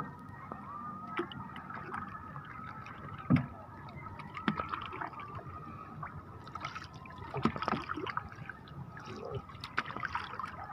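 Water slopping and splashing at the side of a small boat as a longline is hauled in by hand, with scattered knocks and clicks of handling. A faint steady high hum runs underneath.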